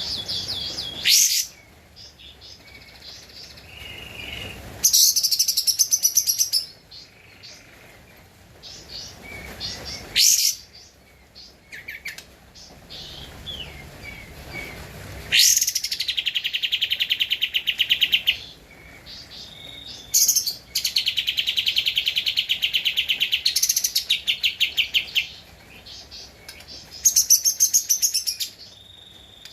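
Kapas tembak songbird singing vigorously: short high calls between long bursts of fast, rapidly repeated chattering notes lasting several seconds each.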